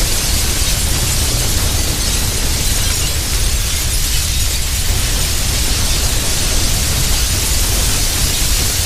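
Crash sound effect: a loud, steady rush of noise with a deep rumble underneath and a hiss on top, with no separate impacts.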